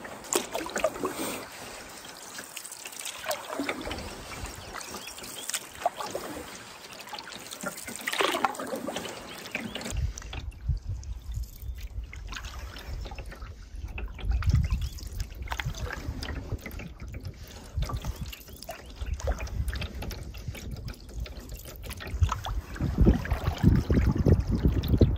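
Canoe paddle strokes in lake water: irregular splashes and trickling drips off the paddle blade. From about ten seconds in, wind buffets the microphone under the splashing, strongest near the end.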